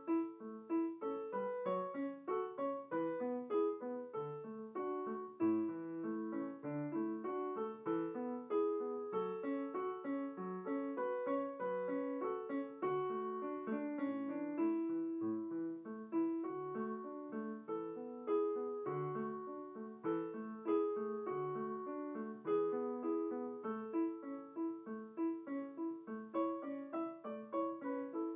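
Improvised solo piano music, a continuous run of notes without pause.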